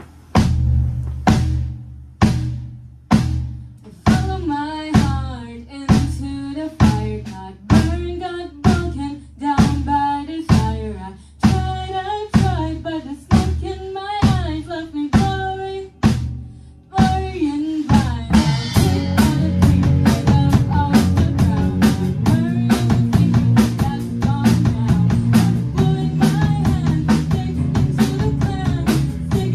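Live rock band: a girl sings lead over evenly spaced drum hits with sparse guitar, then about 18 seconds in the full band comes in with drum kit, electric guitars and bass playing continuously.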